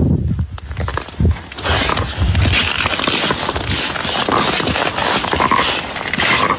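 Crunching and scraping on lake ice: a dense crackling noise of many small clicks that starts about one and a half seconds in.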